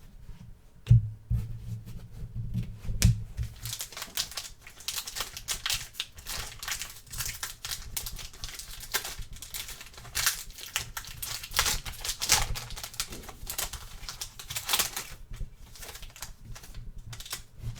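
Trading-card pack wrapper being torn open and crinkled, with dense irregular crackling as the cards are handled, and two knocks about one and three seconds in.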